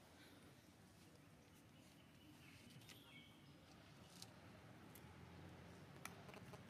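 Near silence: faint outdoor ambience with a brief faint chirp about halfway through and a few soft clicks later on.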